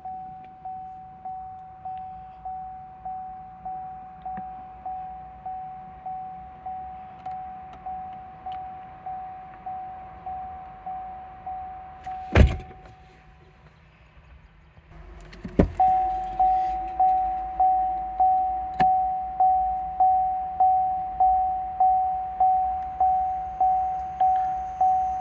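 2014 Chevrolet Impala LTZ's warning chime dinging over and over, about once a second. A loud thunk about twelve seconds in is followed by the chime stopping. After a short pause a second thunk comes, and the chime starts again, louder and quicker, over a low hum.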